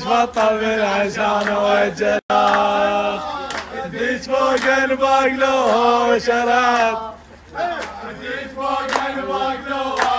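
Men's voices chanting a song together in long held notes, with sharp hand claps. The sound cuts out for an instant about two seconds in.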